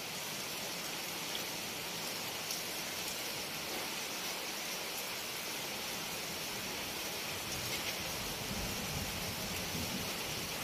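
Steady, continuous rain falling heavily: an even hiss with no pauses.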